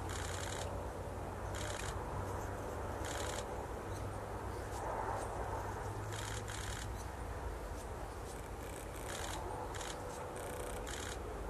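Quiet outdoor ambience: a steady low hum with short bursts of fast high-pitched clicking every second or few.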